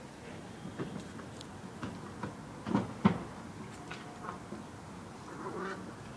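Two cats outside making short, harsh calls at each other, the run-up to a cat fight; the loudest pair comes about three seconds in.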